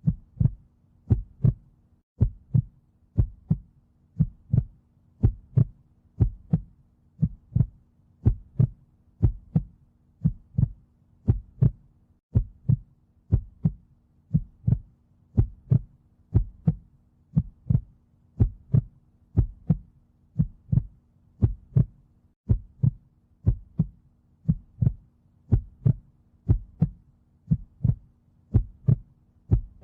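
Recorded heartbeat beating steadily, a lub-dub pair about once a second, over a faint steady low hum.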